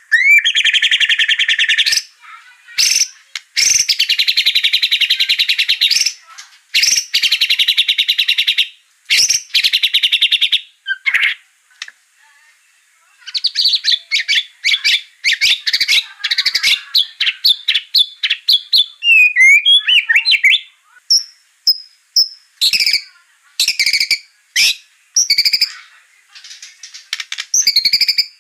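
White-rumped shama (murai batu) singing loudly: long trills of very rapid notes in the first half, a brief lull, then fast runs of notes and varied short whistles and sharp chattering phrases.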